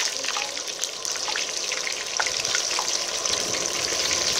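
Snakehead fish deep-frying in hot oil in a wok: a steady sizzle scattered with small crackles and pops.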